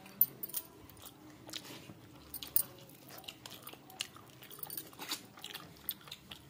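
A person chewing and eating close to the microphone, with scattered small irregular clicks and crunches, the sharpest one just after the start.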